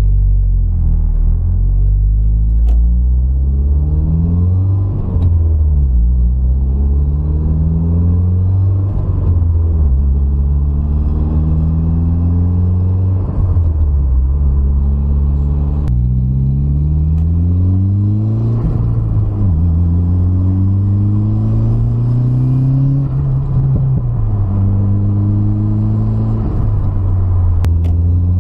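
Mazda MX-5's four-cylinder engine heard from inside the cabin while driving: the revs climb in each gear and drop back at every gear change, about ten times over.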